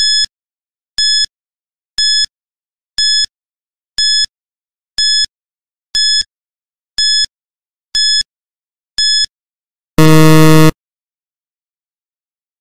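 Quiz countdown timer sound effect: ten short high-pitched electronic beeps, one a second, then a louder, low buzzer about ten seconds in that signals time is up.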